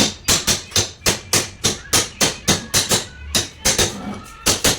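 Rapid, evenly spaced sharp taps or strikes, about four a second.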